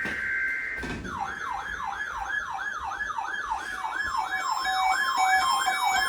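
Emergency Alert System header tones end with a click about a second in. Then a siren-like alert tone begins: a falling wail repeated about three times a second, which marks the start of a Required Weekly Test alert. Steady alarm tones join it partway through.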